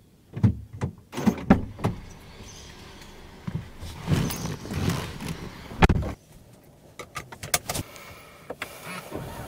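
A person climbing into a car's driver's seat: scattered knocks and clicks, with rustling of clothes and seat, heard from inside the cabin. A car door shuts with a thump about six seconds in, then several light clicks come near the end.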